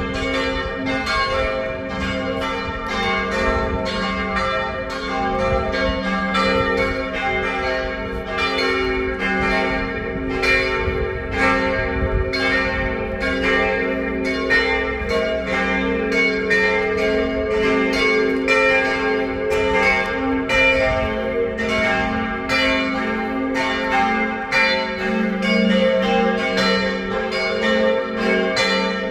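Several church bells ringing together in a full peal: overlapping strikes, roughly one to two a second, over a lingering low hum from the bells.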